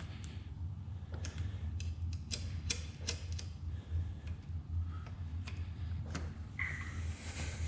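Scattered, irregular light clicks as the throttle cables are loosened at the handlebar throttle housing of a Honda CRF110. A steady low hum runs underneath.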